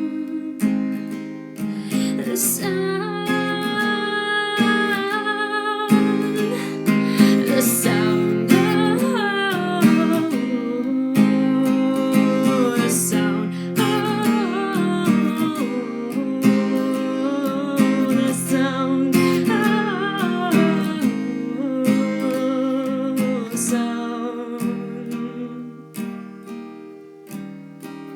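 Acoustic guitar strummed and picked as the instrumental close of a song, fading down near the end.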